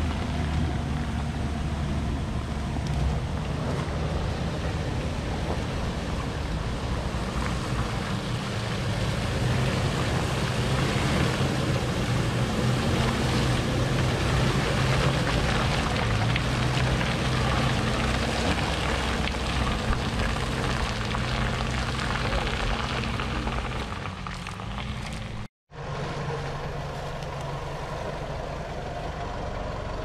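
Off-road 4x4 engines running steadily under load as they drive through deep mud. Near the end the sound cuts out for a moment and a quieter engine running follows.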